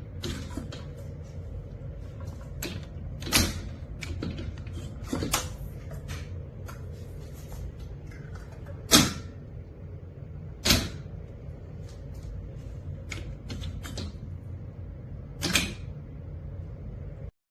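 A run of sharp clacks and knocks, five louder than the rest and spread a few seconds apart, over a steady low hum. The sound cuts off just before the end.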